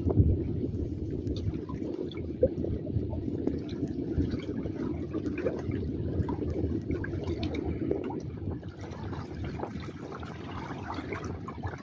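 Seawater lapping and sloshing, with many small irregular splashes and drips.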